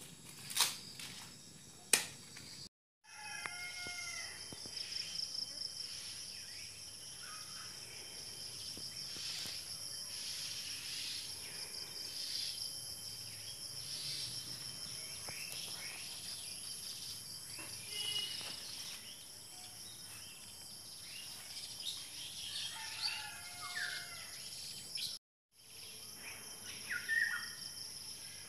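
Outdoor ambience with a steady high insect drone and a bird calling now and then, loudest near the end. A few crinkling clicks come in the first two seconds.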